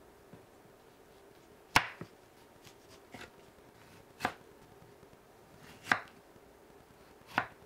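Kitchen knife cutting through a peeled tomato and striking a wooden cutting board: four sharp knocks about a second and a half apart, with a few fainter ticks between them.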